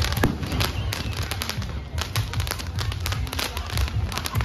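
Aerial fireworks going off overhead: a dense run of sharp cracks and bangs over a low rumble.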